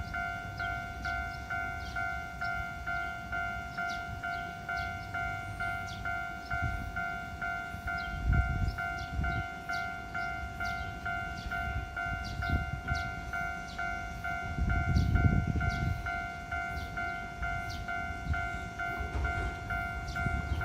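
Japanese railroad crossing's electronic warning bell ringing steadily, a two-tone clang repeating about twice a second, meaning the barriers are down for an approaching train. Low rumbling swells about eight seconds in and again around fifteen seconds.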